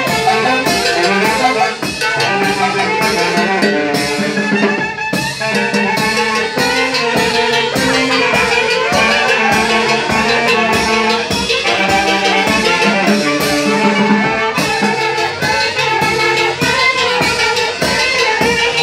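Loud festive dance music with wind instruments over drums keeping a steady, driving beat.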